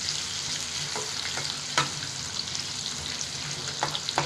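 Chopped carrots and beans sizzling in hot oil in a pan as they are stirred and sautéed, with a few sharp knocks of the stirring utensil against the pan.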